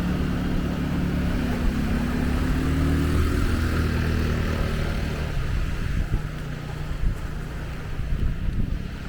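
A motor engine running over steady surf and wind; its hum fades out about five seconds in.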